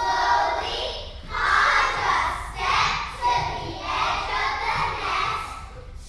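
A group of children's voices sounding together in several rising and falling swells, about one a second.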